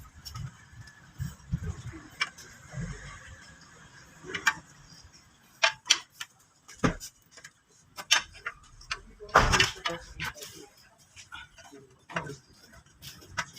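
Irregular clicks and metallic knocks of hand tools as bolts are tightened, with one louder knock about nine and a half seconds in.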